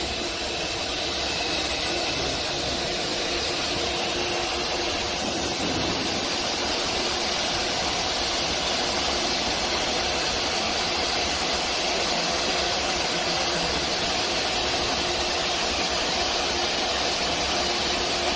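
Steady hum and hiss of an ATC CNC router running while its spindle head, fitted with a brush dust hood, is positioned over the tool-length sensor for automatic tool measurement.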